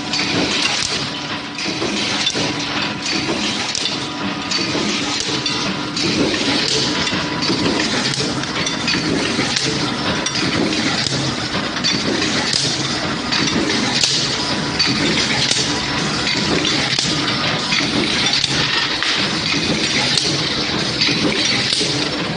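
Automatic hot nut-forging line at work: a dense, continuous clatter of metal-on-metal knocks and clinks as the forging press works red-hot steel bar, over a steady machine hum with a faint steady tone.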